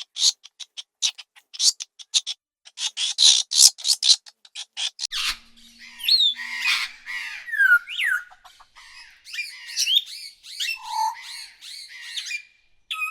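Birds calling: a rapid run of short, harsh squawks for about five seconds, then a busy stretch of quick chirps that slide down in pitch.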